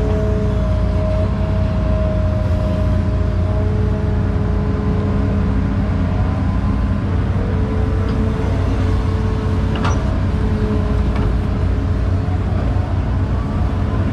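Hydraulic excavator running under working load, heard from inside the cab: a steady low diesel rumble with a steady whine on top whose pitch shifts a few times as the machine digs and swings. A single sharp click about ten seconds in.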